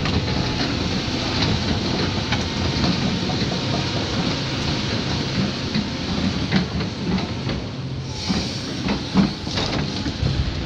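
Caterpillar 349F hydraulic excavator running steadily as it swings its boom, with a thin steady tone over the engine noise. A few knocks come near the end as the bucket comes down into the ground at a stump.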